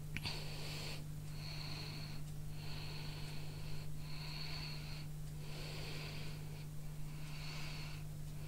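A person breathing heavily close to the microphone: about six hissing breaths in and out, each about a second long, over a steady low hum.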